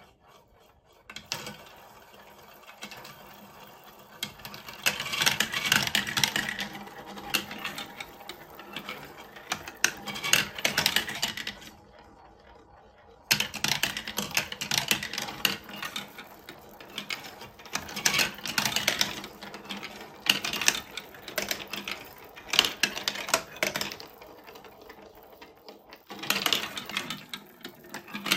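Small plastic balls rolling and rattling down a plastic block-built marble run, clicking over the track joints and stair-like steps and swirling round the funnel bowls. The clatter stops briefly about twelve seconds in, then picks up again.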